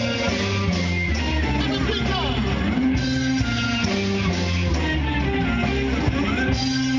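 Live rock band playing through a PA: electric guitar over bass guitar and drums, with a few notes sliding in pitch about two seconds in and near the end.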